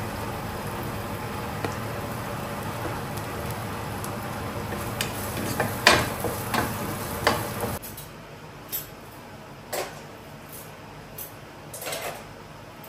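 Chopped onion and garlic sizzling in oil in a pot, with a wooden spatula knocking and scraping against it. About eight seconds in the sizzle cuts off, and a few sharp clinks of cutlery and dishes follow as a dishwasher is unloaded.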